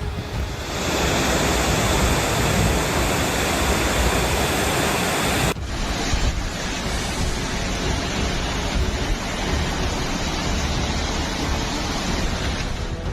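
Loud, steady rushing noise with no clear pitch, like strong wind or heavy surf. About five and a half seconds in it changes abruptly to a slightly quieter stretch of similar noise.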